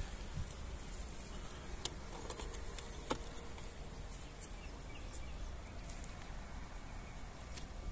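Quiet outdoor background with a low rumble and a few faint high ticks. About three seconds in, a single click as a mains plug is pushed into the power inverter's socket.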